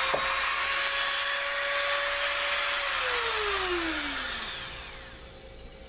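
Dremel rotary tool with a cut-off wheel grinding through a turkey's humerus bone, a steady high whine. About three seconds in it is switched off and the whine falls in pitch as the motor spins down.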